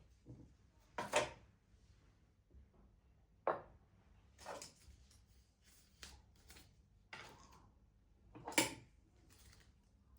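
A series of light knocks and clatters from household objects being handled and set down. The loudest come about a second in and near the end.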